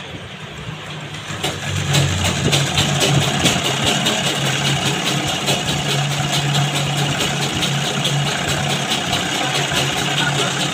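Sewing machine motor humming, then stitching at a steady speed from about a second and a half in, with a fast, even clatter of needle strokes as the fabric is fed through.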